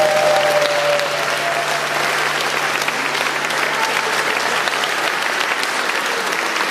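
Audience applauding steadily and densely, with the song's last held note fading out about a second in.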